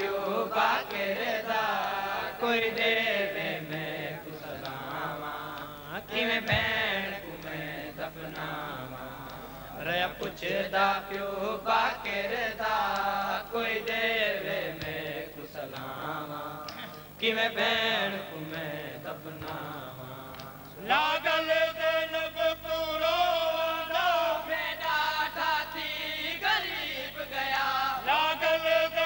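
Nauha, the Shia mourning lament, chanted by men in long rising and falling sung lines. About 21 seconds in, the chanting turns fuller and more sustained.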